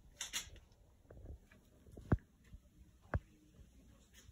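Faint rustle near the start, then two sharp knocks about a second apart, the first the louder.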